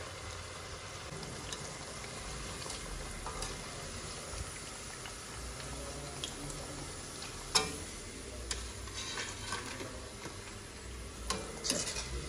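Potato pakoras sizzling as they deep-fry in hot oil in a karahi, with a few sharp clicks of a wire skimmer against the pan, the clearest about seven and a half seconds in and near the end.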